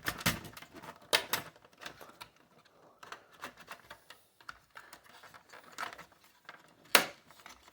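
Plastic CPU fan cover of a desktop PC clicking and knocking as it is worked around by hand to pop it free of its clips: a few sharp clicks with faint ticks between, the loudest about seven seconds in.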